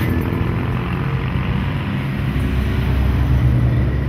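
Cars and a pickup truck driving past one after another, their engines running with a steady low drone.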